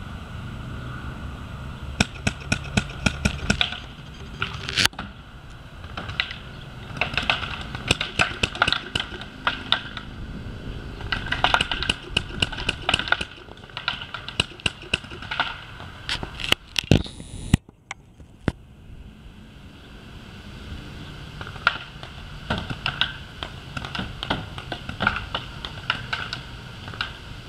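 Paintball marker firing rapid strings of shots, several volleys of quick pops separated by short pauses.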